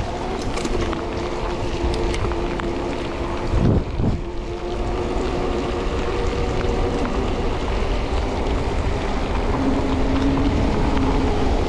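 Wind rushing over the camera microphone and mountain-bike knobby off-road tyres hissing and humming steadily on wet asphalt during a fast descent, with a brief heavier gust about four seconds in.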